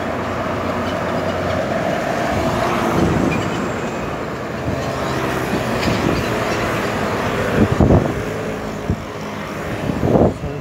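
Road traffic passing at a city intersection: cars and scooters driving by close at hand in a steady din with engine hum, and a couple of sharp thumps about eight seconds in.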